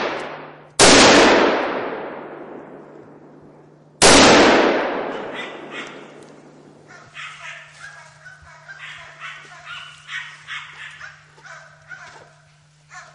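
Two gunshots about three seconds apart, each echoing away over a couple of seconds, then hunting dogs barking repeatedly.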